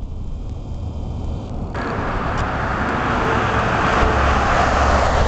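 Road vehicle noise: a low rumble, then a rush of tyre and engine noise that swells steadily louder over the last few seconds, as of a vehicle passing close by on the road.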